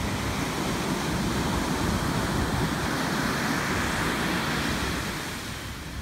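Ocean surf breaking and washing up the sand, swelling in the middle and easing off near the end.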